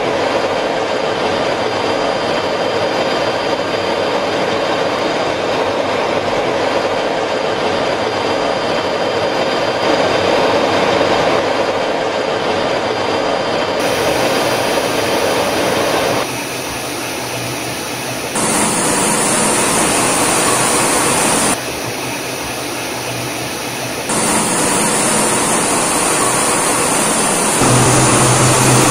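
Jet aircraft in flight: a steady, loud rushing engine and airflow noise, as heard from aboard a jet. Its tone shifts abruptly several times, and a low steady hum joins near the end.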